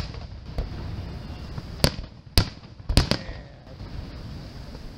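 Aerial firework shells bursting: a faint pop in the first second, then a quick run of sharp bangs about two to three seconds in, with a low rumble between them.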